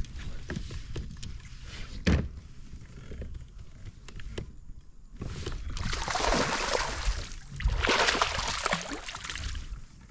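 A hooked bass thrashing and splashing at the surface right beside a kayak, in two long bursts in the second half. Earlier there is a single sharp thump.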